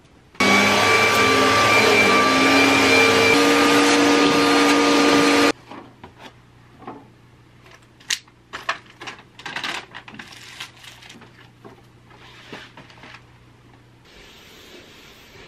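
Vacuum cleaner running loud and steady, its motor whine shifting pitch slightly, then cut off abruptly about five seconds in. Afterwards come scattered clicks and knocks of things being handled over a faint low hum.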